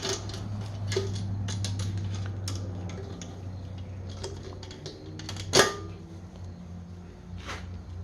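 Light metallic clicks and taps of hand tools and valve parts being worked on a diesel cylinder head as the valve keepers are taken off, with one louder metal knock about five and a half seconds in. A steady low hum runs underneath.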